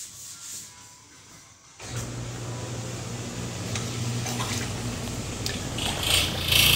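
Garbage disposer switched on by the sink-top air switch, its motor starting with a sudden, steady hum about two seconds in. Water churns down through it, and a louder rushing of draining water comes in near the end.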